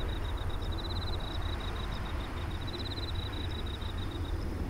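Boeing 747-400's four turbofan engines giving a steady low rumble as it climbs past overhead. A high-pitched chirp repeats in quick regular pulses over the rumble and stops shortly before the end.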